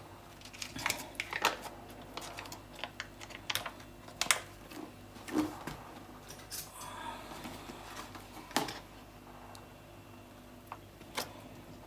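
Scattered light clicks and taps with a soft rustle about seven seconds in: hands handling a raw whole chicken and its ceramic plate on a countertop.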